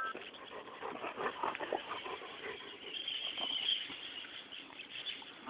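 Dogs wrestling in play, with a run of short, irregular dog noises and scuffles.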